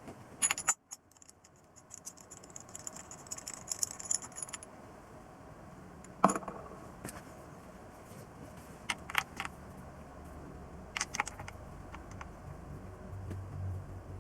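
Small metal objects clinking and jingling as they are handled for the first few seconds, then a few separate sharp knocks and clicks.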